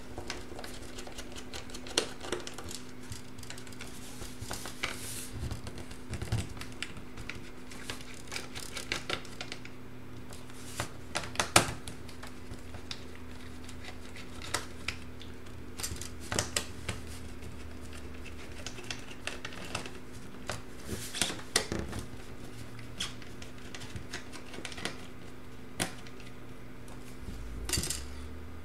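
Screwdriver and small screws clicking and ticking against the plastic chassis of a Dell Latitude D420 laptop as the palm-rest screws are backed out. The clicks are irregular, with one sharper click a little before the middle, over a steady low hum.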